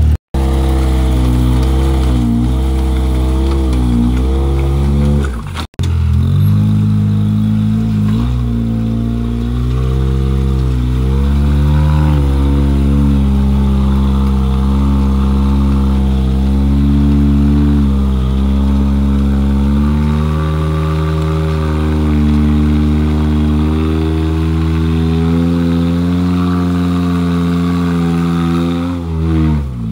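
Rock-crawler buggy engine running and revving up and down in uneven pulls as the buggy crawls over boulders. The sound drops out briefly twice, once right at the start and once about six seconds in.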